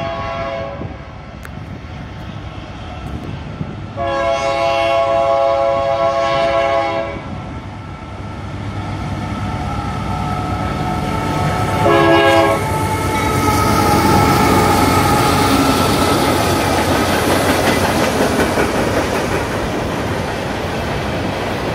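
Union Pacific diesel freight locomotive's air horn: the tail of one blast in the first second, a long blast about four seconds in, and a short one around twelve seconds. The locomotive then passes and the freight cars roll by, a loud steady din of wheels running on the rails.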